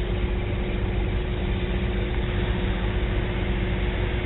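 Steady low mechanical drone, like running machinery or an idling engine, with a thin steady hum above it.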